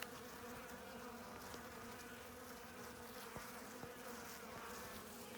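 Honeybees buzzing steadily in a low hum around an opened hive, a swarm of wingbeats with a few faint clicks.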